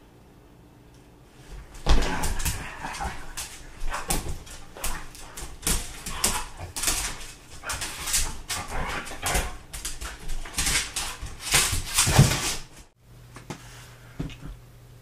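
A German shorthaired pointer whimpering and yipping excitedly during rough play, with its feet scrabbling on a wooden floor. The noise starts about two seconds in and stops abruptly near the end.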